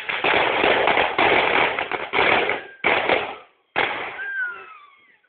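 Firecrackers going off in a fast, crackling string, loud and dense, breaking off just under three seconds in, then two shorter bursts of crackles that die away.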